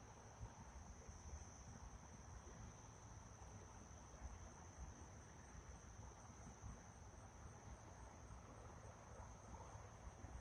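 Faint night-time insect chorus: a steady high-pitched drone, with a faint rapid pulsing higher still through the middle stretch.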